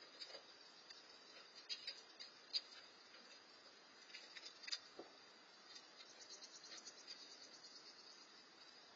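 Faint, steady high-pitched insect chirring with a few brief sharp clicks, the loudest about two and a half seconds in.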